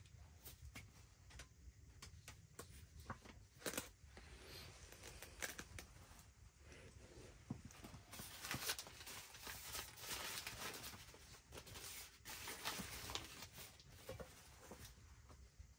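Newspaper crinkling and rustling as a paper-wrapped package is opened by hand, dense from about halfway in. Before that come scattered light clicks and taps.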